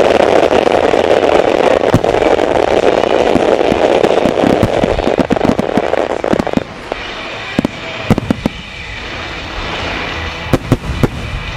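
Fireworks display: a dense run of bangs and crackle over a steady rush of noise for about the first seven seconds, then scattered sharp bangs, with a cluster near the end.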